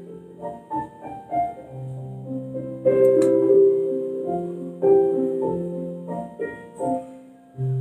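Background piano music: a slow melody of single held notes.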